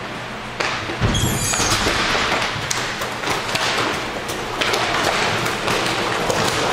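Inline hockey play: a steady clatter of knocks and thuds from sticks, puck and skates, with the loudest thud about a second in.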